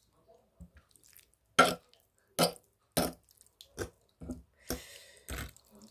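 A run of about six short, sharp throat sounds from a person, a second or less apart, the loudest in the first half, with a breathy hiss shortly before the last one.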